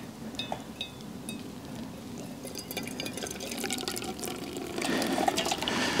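Hot water poured from a small metal pot into a stainless steel pour-over coffee filter on a mug: a splashing trickle that grows louder as the pour goes on.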